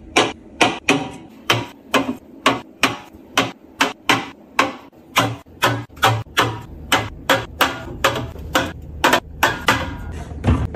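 Aluminium drink cans set down one after another on a refrigerator shelf, a sharp clink about three times a second.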